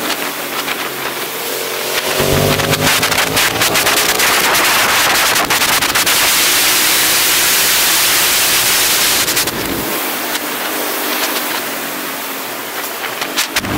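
Aprilia SXV 550 supermoto's V-twin engine, with its Akrapovič titanium exhaust, running hard on track, its pitch rising and falling through the revs. From about two seconds in until near the end, a loud wind rush over the onboard microphone drowns the engine out, and it comes back quieter afterwards.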